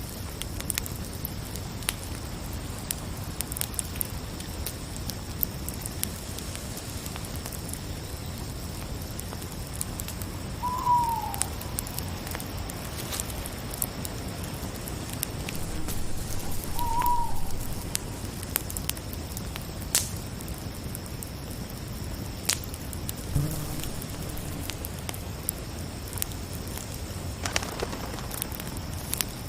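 Crackling campfire with scattered sharp pops over a steady chirring of crickets. A short falling call sounds twice, about eleven and seventeen seconds in.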